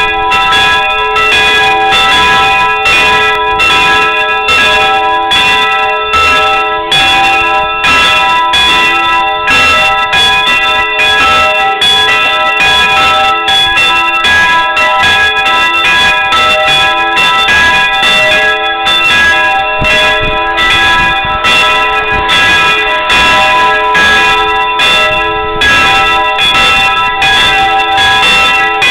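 Church bells ringing loudly and continuously, with strikes at about two a second over a lasting ring of overlapping tones.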